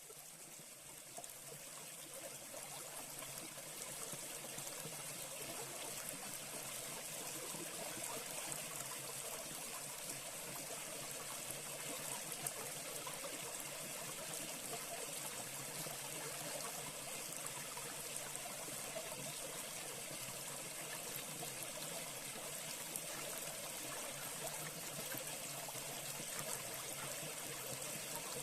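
A small brook flowing and trickling steadily, fading in over the first few seconds.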